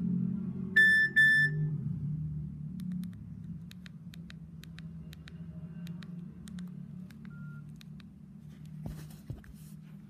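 Nokia 2700 Classic mobile phone playing two short beeps of the same pitch through its small speaker, a message alert tone being previewed. A run of soft keypad clicks follows as the buttons are pressed, and near the end a brief rustle and thump as the phone is set down on fabric.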